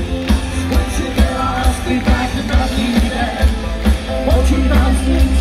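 Rock band playing live through a PA: singing over a steady drum beat, heavy bass and electric guitar.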